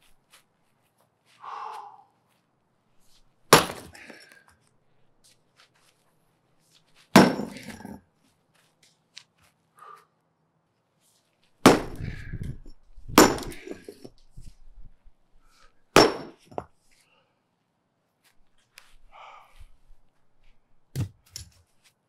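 Sledgehammer strikes on concrete sidewalk slabs, breaking them: five loud, sharp blows a few seconds apart, each followed by a short rattle, and a lighter knock near the end.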